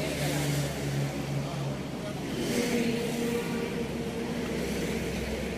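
Motor vehicle engine running close by: a steady hum over a low rumble, its pitch shifting about halfway through.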